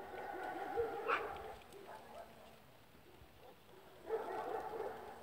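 A dog barking in two spells: one at the start lasting under two seconds, another starting about four seconds in.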